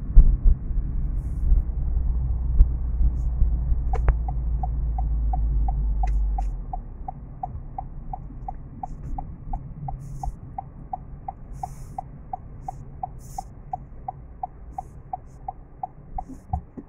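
Car turn-signal indicator ticking evenly, about three ticks a second, from about four and a half seconds in. A click comes just before the ticking starts. Under it runs the car's engine and road rumble, loud at first and much quieter after about six seconds, as the car comes to a standstill in traffic.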